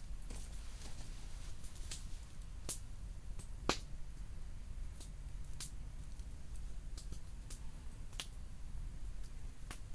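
Campfire of burning wood crackling: irregular sharp pops, roughly one a second, the loudest nearly four seconds in, over a low steady rumble.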